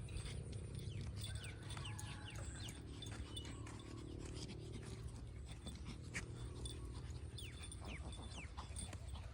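Repeated short, falling chirps of small birds over a steady low rumble.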